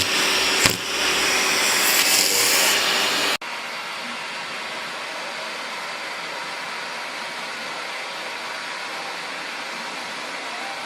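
Vacuum cleaner running with a loud, steady rushing noise, with a single knock near the start. About three seconds in the sound cuts off abruptly to a quieter, even rush of a vacuum cleaner running.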